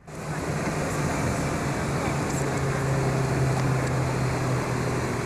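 An engine running steadily at low speed, a low hum that drops slightly in pitch about two seconds in, over outdoor wind and water noise.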